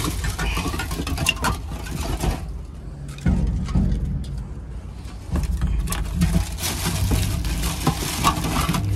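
Aluminium Coca-Cola cans clinking and clattering against each other and the cardboard as a hand rummages through a box of them, with paper and foam packing crinkling, in three spells of handling broken by a short pause about three seconds in. A steady low hum runs underneath.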